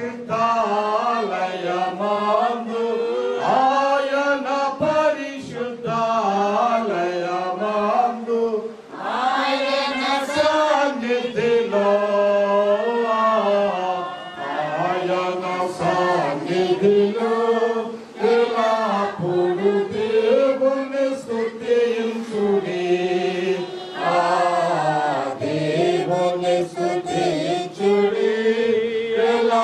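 Chant-like singing: a melody of long held notes that slide up and down, broken by short pauses for breath.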